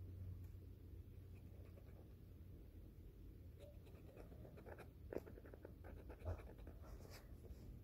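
Faint scratching and tapping of an acrylic paint marker's tip on paper as it colours in, a run of short strokes that thickens in the second half, with two slightly louder taps.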